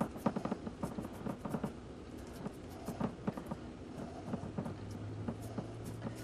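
Hands squishing and patting a raw ground-meat mixture into a glass loaf pan: a run of soft, irregular squelches and pats, with a low steady hum underneath.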